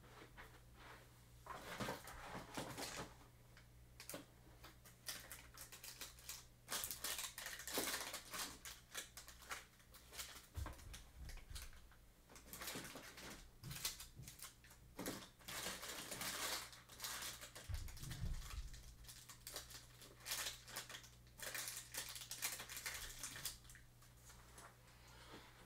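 Foil trading-card packs being handled and sorted through, with faint, irregular crinkling and clicking in clusters. A low steady hum runs underneath.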